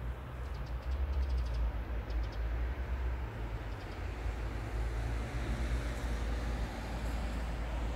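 Motor vehicle running with a low, steady rumble, with a few faint ticks in the first two seconds.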